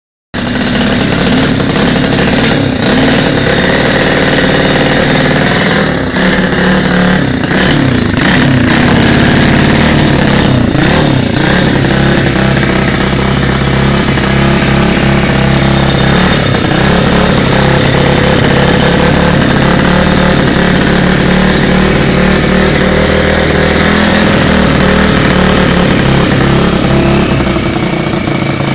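A 125 cc pit bike engine, bench-tested out of the bike and clamped in a vise, running loud. It is revved up and down a few times in the first half, then held at a steadier speed.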